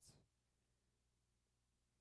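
Near silence: room tone, with a very faint steady low hum.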